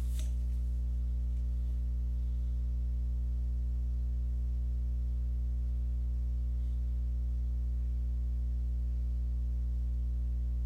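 Steady electrical mains hum with a low buzz, unchanging throughout, with a faint mouse click right at the start.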